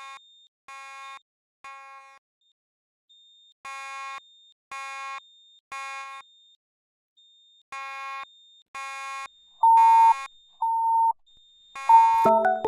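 Fire alarm sounding the temporal-three evacuation tone: groups of three half-second beeps with a pause between, repeating. About ten seconds in a louder, purer beep from another sounder joins in, sounding three times.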